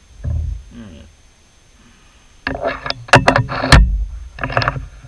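Metal clinks and clanks of a boring bar and its holder being taken off a metal lathe's tool post: a dull knock near the start, then a quick run of sharp metallic clicks and clanks in the second half.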